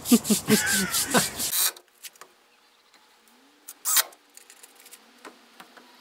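A small brush scrubbing wet flagstone in quick, even strokes, about four or five a second, with a voice over it. The scrubbing cuts off abruptly about a second and a half in. After that there are only faint sounds and a single sharp knock.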